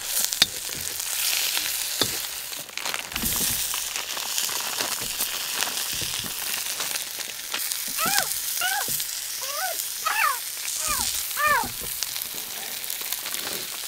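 Sausages and peppers sizzling in a wok as they are stir-fried over a small fire, with scattered clicks. A few short pitched sounds, each rising and falling, come between about eight and twelve seconds in.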